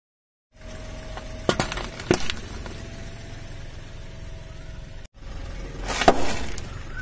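A car tyre rolling over and bursting a packet of white liquid, giving two sharp pops about a second and a half and two seconds in, over the low hum of the car. After a cut, the tyre crushes a bag of chips with a louder crackling crunch about six seconds in.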